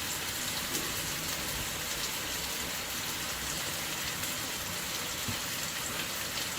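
Ginger chicken sizzling in a pan with its sauces over a low-to-medium flame: a steady, crackling hiss.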